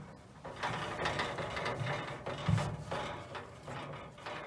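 A carpet panel rasping and scraping as it is pushed and slid into place against the steel inside of a gun cabinet, in several strokes, with a dull bump about halfway.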